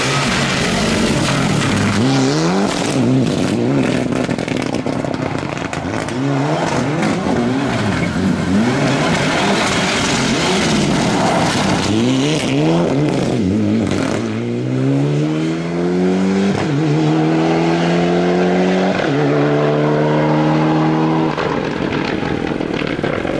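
Mitsubishi Lancer Evo IX rally car's turbocharged four-cylinder engine revving up and down as it brakes and accelerates through a tight chicane. It then accelerates hard up through the gears with two gear changes, and the engine sound drops away near the end.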